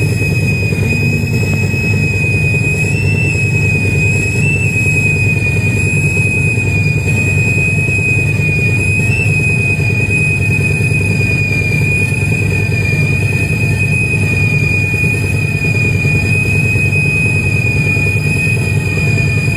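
Heavy marine diesel machinery running steadily: a dense low rumble with a high, steady whine over it.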